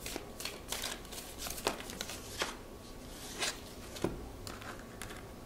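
Tarot cards being shuffled and handled by hand: a scattered run of soft card snaps and rustles, with a card tapped down on the table about four seconds in.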